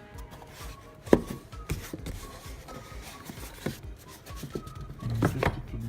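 Hand-opening and rummaging through a mail parcel's packaging: one sharp knock about a second in, then scattered small clicks and rustles.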